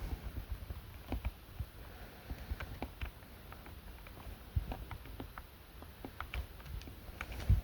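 Handling noise: scattered light clicks and taps over irregular low thumps, with one louder thump near the end.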